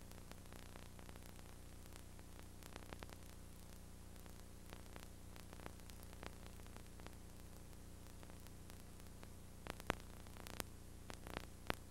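Faint steady hiss and electrical hum with scattered clicks and crackles, which come more often and louder near the end: the background noise of an old videotape transfer.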